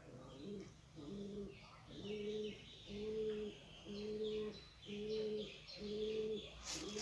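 Pigeons cooing, a regular series of low, even coos about one a second, with faint bird chirps above them. A brief rustle near the end.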